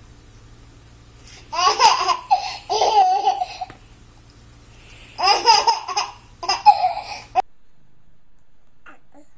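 A baby laughing and giggling in two bouts of a couple of seconds each, over a low steady hum; the sound cuts off suddenly about seven seconds in.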